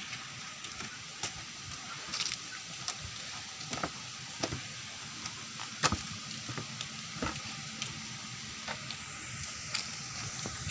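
Footsteps on a concrete path: a dozen or so irregular light taps of sandals over a steady outdoor hiss.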